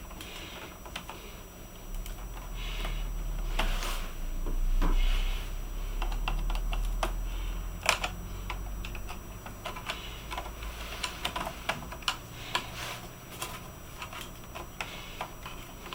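Scattered small plastic clicks and taps from a Toshiba Dynabook F40 laptop being taken apart by hand, with a low rumble from about two to nine seconds in.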